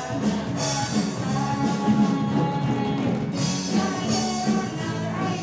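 Live rock band playing, with electric guitars, bass and a drum kit.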